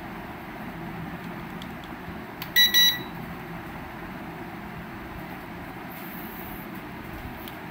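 A toy RC helicopter's 2.4 GHz remote control transmitter giving two quick high-pitched beeps as it is switched on, its power light coming on. Faint steady room hiss otherwise.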